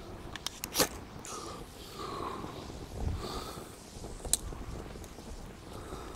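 Quiet handling sounds while a cotton-pad fire starter is lit: a few short sharp clicks just under a second in and one more about four seconds in.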